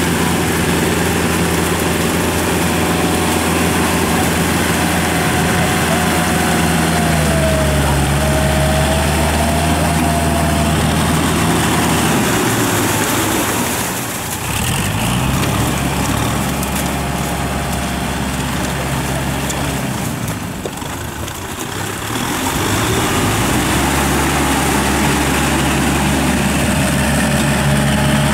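Kubota farm tractors' diesel engines running steadily while working a flooded rice paddy, the engine pitch stepping up and down a few times as they change speed. The sound briefly dips twice in the second half.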